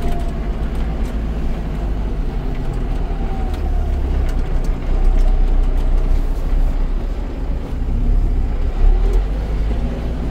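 Kubota KL380 tractor's naturally aspirated four-cylinder diesel engine running steadily as the tractor drives forward, with a faint whine that wavers in pitch.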